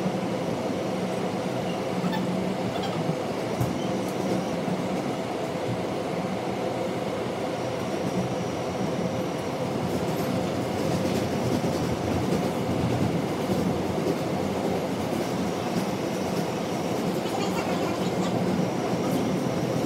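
Running noise inside an R160B subway car travelling through a tunnel: a steady rumble of wheels on rail with a low hum, and faint high wheel squeals that come and go.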